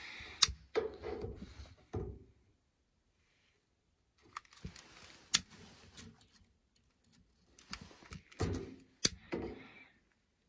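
Sharp clicks and knocks with bits of rustling and clatter: a long-nosed utility lighter being clicked and kindling handled in a small steel wood stove's firebox as the fire is lit. Near-silent for a couple of seconds early on, between the clicks.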